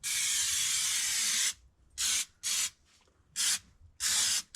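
Aerosol can of rubberized spray sealant hissing in bursts: one long spray of about a second and a half, then four short squirts as the sealer is laid onto a rusted vehicle floor.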